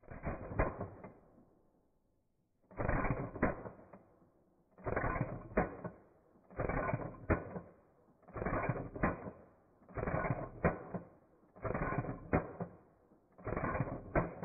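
WE AK gas blowback airsoft rifle cycling its action, played back in slow motion: eight shots, each a drawn-out mechanical clatter of the bolt slamming back and forward with a sharp click or two, about one every couple of seconds.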